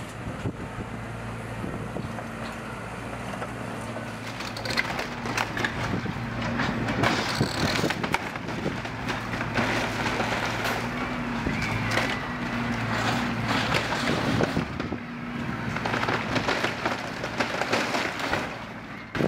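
Tracked demolition excavator's diesel engine running steadily while its grab tears into a prefabricated timber-and-panel building: repeated cracking, crunching and banging of roof timbers and wall panels, getting heavier from about five seconds in.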